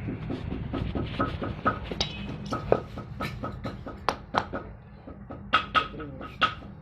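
Irregular sharp taps and clicks, a few a second, over a low steady hum.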